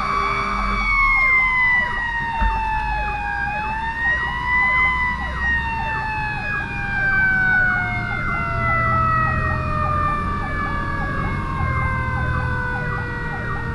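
Fire engine's Q mechanical siren briefly re-revved, then winding down, its wail falling slowly in pitch for about ten seconds. An electronic siren yelps rapidly over it, a steady horn blast cuts off about a second in, and the diesel engine rumbles underneath.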